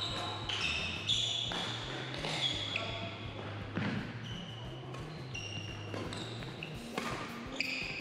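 Badminton play on a hardwood court: sneakers squeaking on the floor in many short, high squeaks, with several sharp clicks of rackets striking shuttlecocks, echoing in a large hall.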